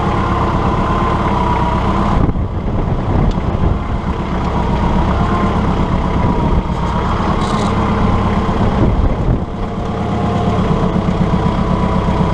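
Compact diesel tractor engine running steadily, with a thin whine over it that wavers slightly in pitch.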